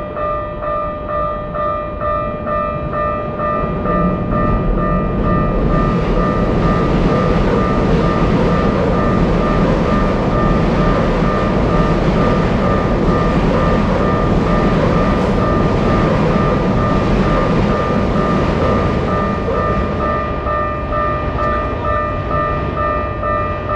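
Japanese railroad crossing alarm ringing steadily at about two strokes a second while a Keikyu train passes; the train's rumble and wheel noise build from about four seconds in, are loudest mid-way and fade near the end.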